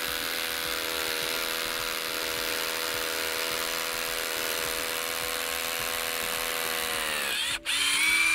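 Ryobi cordless hammer drill boring into rock: a steady drilling noise, with the motor's pitch dropping as it stops briefly about seven seconds in, then starting up again.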